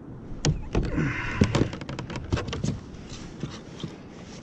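Hard plastic knocks and clatter as a fish-measuring board is pulled out and laid across a plastic kayak. A quick run of knocks starts about half a second in and dies away before three seconds in.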